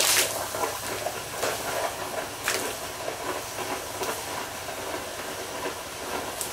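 Quench water boiling violently and hissing into steam on a red-hot steel cannon tube, about 40 pounds of metal at around 1,000 degrees: a steady hiss with sharp spits and pops every second or so.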